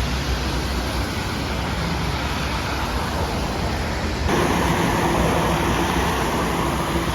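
Steady vehicle and road noise, a constant rushing rumble; about four seconds in it changes abruptly, becoming slightly louder with a low hum underneath.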